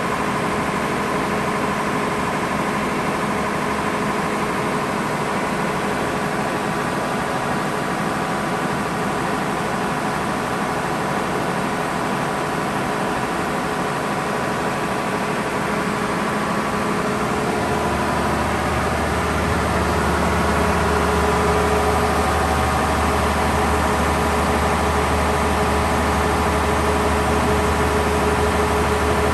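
Gardner 6LXB six-cylinder diesel engine of a 100 kVA generating set running steadily at its governed generator speed of 1500 rpm. The steady hum grows fuller and a little louder about halfway through.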